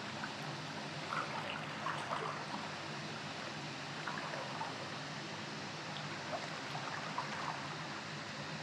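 River water flowing steadily, with small trickling splashes scattered through it.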